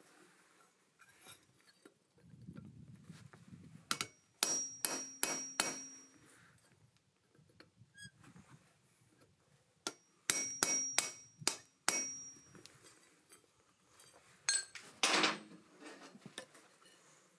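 Hammer blows driving a hand-forged steel punch into hot iron, with the struck steel ringing. They come in two runs of about five quick strikes each. Near the end there is a single louder clattering knock.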